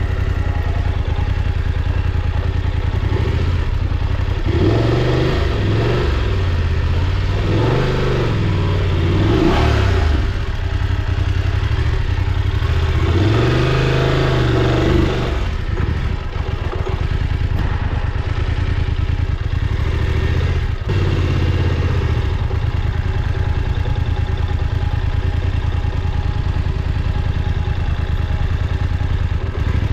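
Motorcycle engine running as it is ridden, rising and falling in pitch several times in the first half as the throttle opens and closes, then holding at a steady pitch for the rest.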